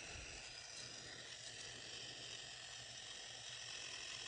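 Plarail Rebecca toy engine's single-AA electric motor running as the engine is held in the hand, its gears and wheels giving a faint, steady whir.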